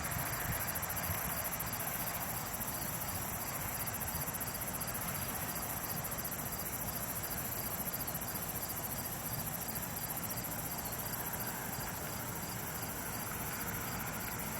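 Steady night chorus of crickets chirping, high-pitched and continuous.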